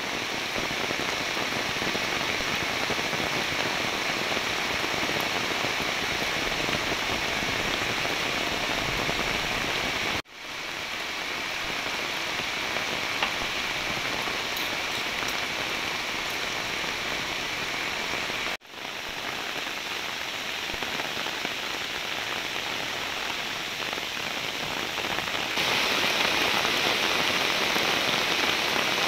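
Heavy rain pouring steadily in a dense, even hiss. It breaks off for an instant twice, about ten and eighteen seconds in, and comes back louder near the end.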